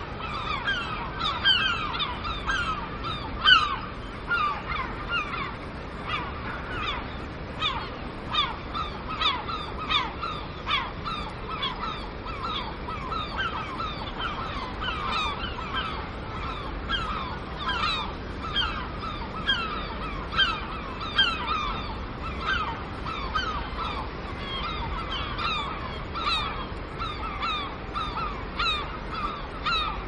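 A flock of gulls calling: many short, falling calls overlapping, several a second.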